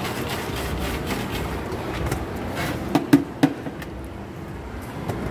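French fries being shaken in a plastic flavouring shaker cup, a steady rattling rush, then a few sharp plastic knocks about three seconds in as the shaker is handled and its lid pulled off.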